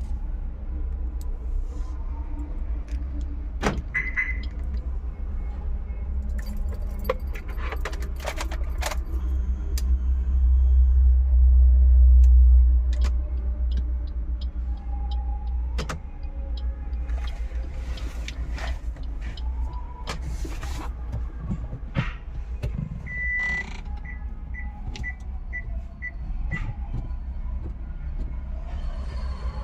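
Car engine running with a steady low rumble that grows louder for a few seconds near the middle, under scattered clicks and handling knocks. Near the end comes a run of about five short high beeps.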